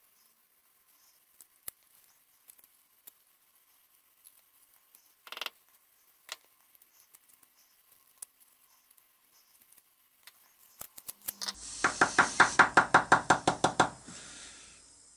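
Faint scraping clicks of a metal hook pick working old wadding out of a lighter body. About eleven seconds in comes a loud, fast rattle of knocks, about ten a second for two to three seconds, as the metal lighter body is shaken to knock out loose debris.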